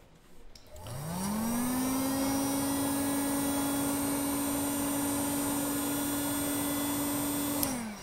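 Heat gun blowing to shrink heat-shrink tubing over crimped connector pins. Its fan motor spins up with a rising whine just under a second in, runs steady with an airy hiss, and is switched off near the end, the pitch dropping away.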